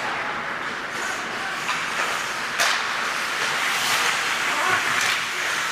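Ice hockey skate blades scraping and carving across rink ice, a steady hiss that swells as players come in toward the net, with a sharp knock about two and a half seconds in.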